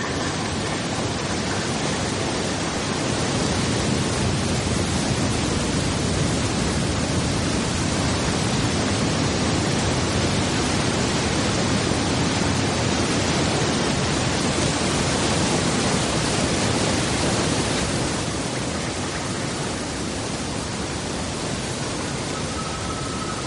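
Iguazu Falls: the steady rush of a large waterfall and the white water below, an even wash of noise that eases off slightly in the last few seconds.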